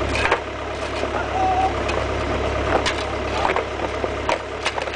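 Bobcat 430 mini excavator's diesel engine running steadily, heard from inside its bucket, with scattered sharp knocks and scrapes as the bucket works against rock and soil.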